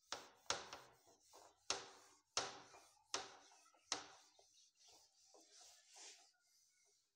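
Whiteboard being wiped clean with a handheld duster: a run of quick rubbing strokes, each starting sharply and fading. There are about six strong strokes in the first four seconds, then softer ones.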